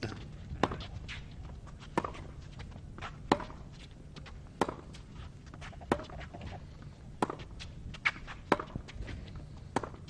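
Tennis ball struck back and forth in a baseline rally on a hard court: eight sharp racket hits about every 1.3 seconds, with fainter knocks between them.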